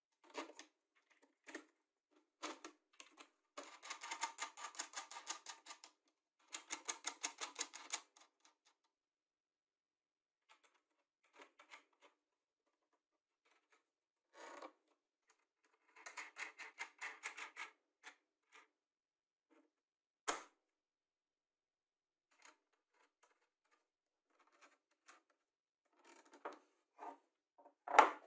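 Small metal nuts clicking and rattling on threaded rods as a plywood drill bit rack is put together by hand: a few bursts of quick ticking and some single clicks. There is a sharper knock near the end.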